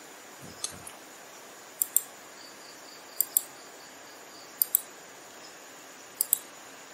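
Computer mouse clicking: five quick pairs of sharp clicks, about one pair every one and a half seconds, the first pair fainter.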